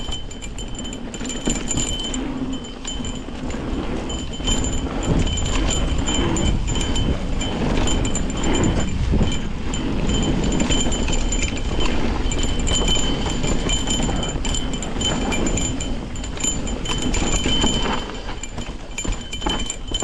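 Nukeproof Giga mountain bike descending a dirt trail at speed: steady rumble of tyres and wind with knocks and rattles over bumps, and a small bell jingling on and off.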